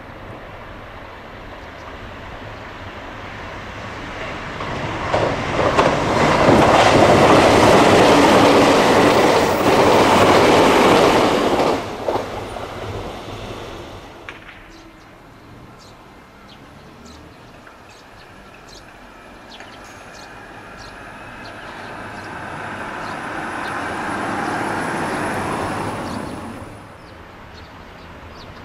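An electric train passing at speed, its running noise swelling to a peak and breaking off suddenly about twelve seconds in. A second train then approaches and passes with a series of wheel clicks, swelling and fading away near the end.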